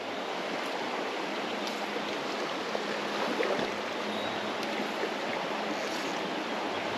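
Small creek flowing, a steady, even rush of moving water.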